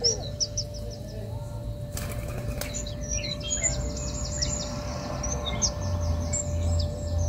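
Small birds chirping in quick high-pitched series, with a short burst of a dove's wings flapping about two seconds in.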